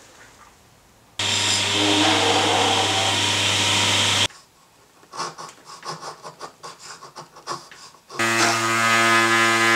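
Table saw running with a steady hum and the rush of a wooden piece being cut, starting abruptly about a second in and breaking off after about three seconds. Then come a few seconds of quick, irregular scraping strokes of a hand tool on wood, and the table saw runs loud again near the end.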